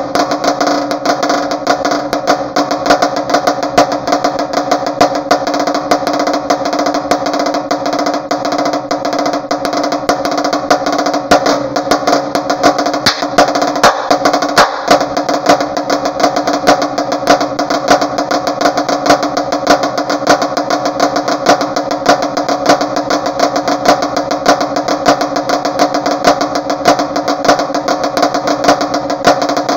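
Marching snare drum played with sticks: a fast, unbroken stream of strokes and rolls with regularly spaced louder accents.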